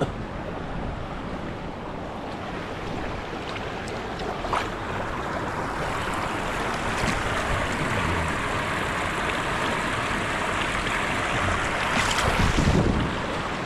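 Steady rush of creek water pouring over small waterfalls and rapids, a little louder in the second half, with a single sharp click about four and a half seconds in.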